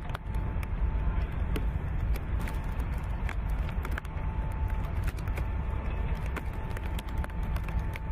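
Outdoor wind buffeting the microphone: a steady, uneven low rumble with scattered crackles, and a thin steady whine above it.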